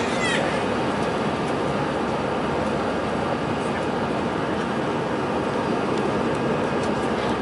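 Airliner cabin noise in the climb after takeoff, heard from a window seat beside the wing engine: a steady, even rush of jet engines and airflow.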